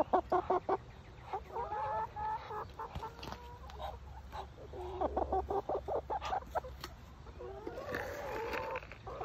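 A flock of backyard hens clucking and calling in short, pitched phrases, with a quick run of sharp taps in the first second.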